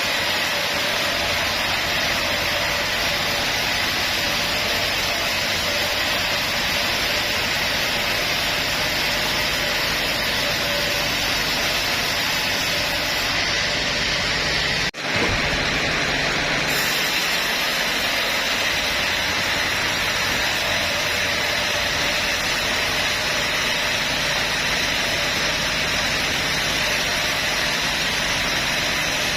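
Sawmill band saw running, a loud steady rushing noise with a faint steady whine, briefly dropping out about halfway before going on as before.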